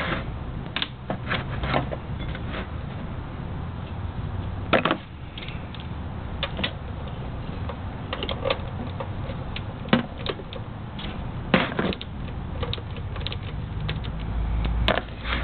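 Ratchet socket wrench clicking and metal tools knocking as the oil drain plug on a Honda Helix scooter's engine case is worked off. The clicks come scattered and in short runs, with a few louder knocks.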